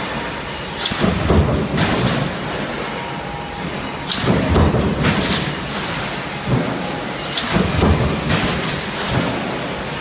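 Metal stamping press line with a coil feeder running. Over a constant drone, loud bursts of machine noise come in pairs every two to three seconds.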